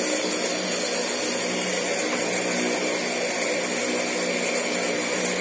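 Steady hum of an electric motor running without a break, a constant pitched drone over a hiss.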